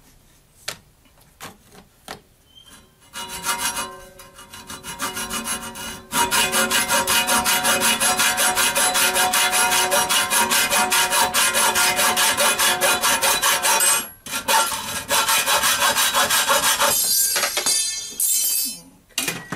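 Hacksaw cutting a metal rod clamped in a vise: a few slow starting strokes, then fast, even back-and-forth strokes, a short break, and a few last ragged strokes as the rod is cut through near the end.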